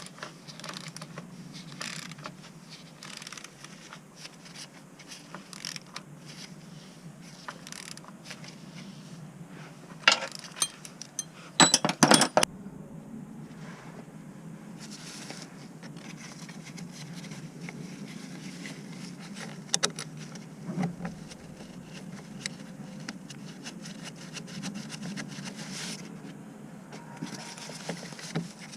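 Scattered metallic clinks and scrapes of tools and parts being handled, with sharp clatters about ten and twelve seconds in.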